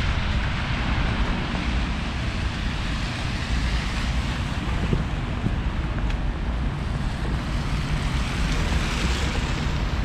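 Steady street noise from city traffic, with a low rumble of wind on the microphone.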